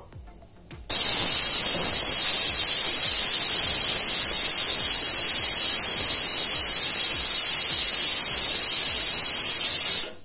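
A stovetop pressure cooker whistling as its weight lifts and steam rushes out: one loud, steady, high hiss lasting about nine seconds. It starts suddenly about a second in and cuts off sharply near the end. The whistle means the cooker is at full pressure, and each one counts toward the six whistles that cook the dal through.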